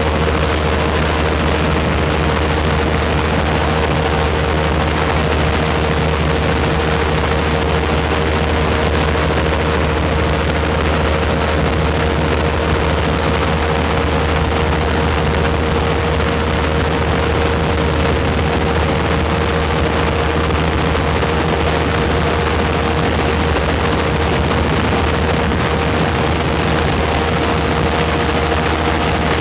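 Airboat's 35 hp Loncin engine and rear propeller running steadily at an even speed: a loud low drone with a constant mid-pitched tone held over it.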